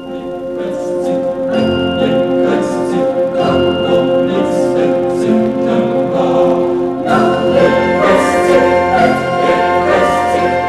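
Background music: a choir singing over a steady held note, growing fuller about seven seconds in.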